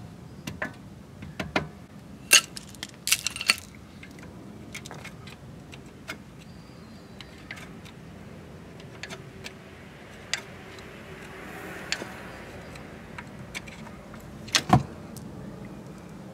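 Scattered metallic clicks and clinks of brake pads, their retaining pins and a screwdriver being handled, with a cluster of clinks a few seconds in and one sharper knock near the end.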